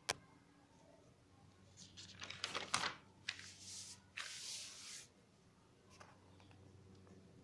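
A paper notebook page being turned by hand: a sharp click at the start, then about three seconds of paper rustling and crackling, with a small click near the end.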